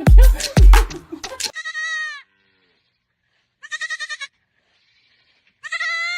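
Two loud thumps with rustling, then an animal bleating three times, each call a wavering, quavering cry a second or two apart.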